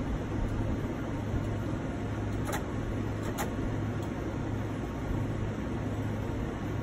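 A steady low machine hum, with two light metallic clicks about a second apart near the middle as a hand tool works on the diesel's exposed rocker arms and injector linkage.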